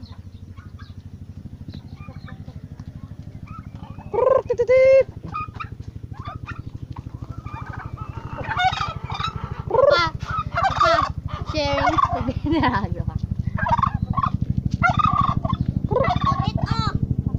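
Turkeys gobbling again and again, a run of wavering calls from about four seconds in, over a steady low hum that grows louder in the second half.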